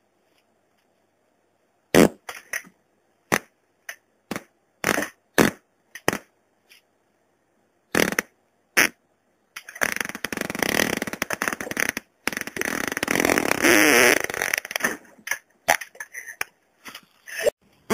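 Human farts. After a short silence comes a string of about a dozen short farts, then one long sputtering fart of about five seconds, then several more short ones near the end.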